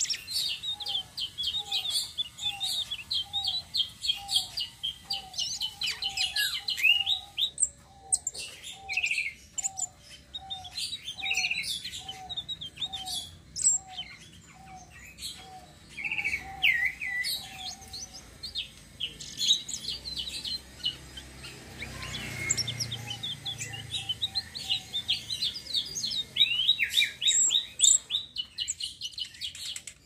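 Tledekan sitrun (selendang biru) songbird singing in long, rapid rolling trills of high chirps, broken by short pauses. Under the song, a lower note repeats about twice a second through the first half or so, and a low rumble swells briefly about two-thirds of the way through.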